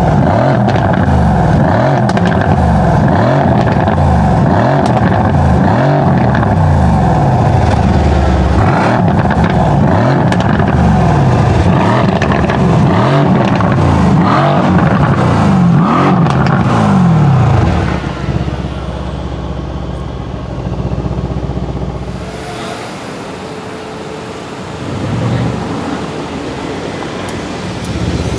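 Mercedes-AMG C63 S Estate's 4.0-litre twin-turbo V8 revved again and again, its pitch rising and falling about once a second, with sharp exhaust pops mixed in. About 18 seconds in, it drops to a quieter, steadier running.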